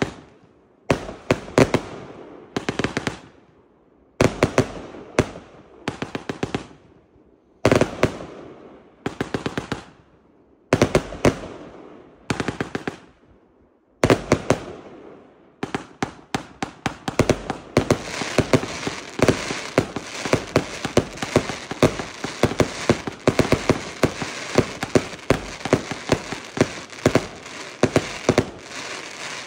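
Consumer firework cakes firing: groups of sharp shots launching comets that burst overhead, a group about every three seconds, each trailing off. From about halfway through, a fast, dense run of shots and bursts with no gaps.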